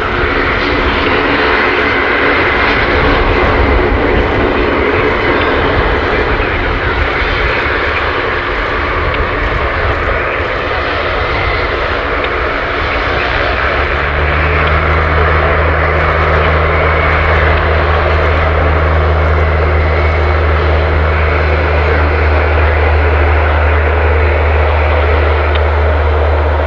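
Lockheed C-130J Hercules's four Rolls-Royce AE 2100D3 turboprops running at taxi power: a steady propeller drone with a held hum of blade tones. About halfway through, a deep, steady low hum joins in.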